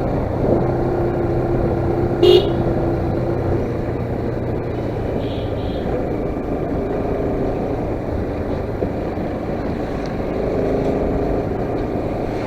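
Bajaj Pulsar RS 200 single-cylinder motorcycle running along a road, with steady engine and road noise, and one short horn toot about two seconds in.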